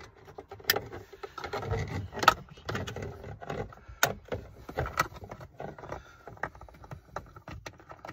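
Hands reconnecting plastic electrical connector plugs in a car's console: irregular clicks and knocks with plastic rubbing and scraping, the sharpest click a little over two seconds in.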